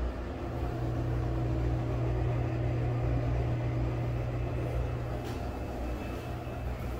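Bathroom ceiling exhaust fan running with a steady low hum: a cheap Broan-NuTone 50 CFM replacement impeller and motor fitted in a Penn Zephyr fan housing and grille, in place of the burned-out original.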